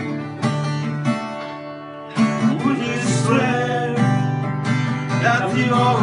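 Acoustic guitar playing chords in an instrumental passage of a pop ballad. The music dips about a second and a half in, then comes back in sharply with a bending melody line over the chords.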